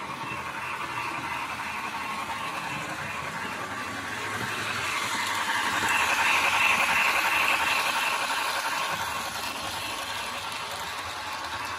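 Fleischmann P8 (BR 38) model steam locomotive running with its Zimo MX645 sound decoder, which plays steam-engine hiss through the model's small loudspeaker. The sound swells about five seconds in, is loudest as the engine passes close, and eases off toward the end.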